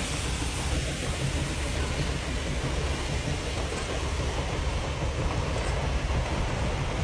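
Narrow-gauge steam train climbing a grade as its last cars pass: a steady low rumble of wheels on rail and train noise, with no distinct beats.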